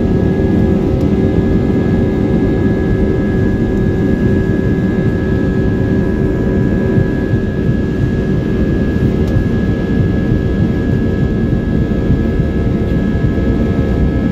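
Airliner's turbofan engines at takeoff power, heard from inside the cabin: loud and steady, several fixed whining tones over a heavy low rumble as the aircraft runs down the runway.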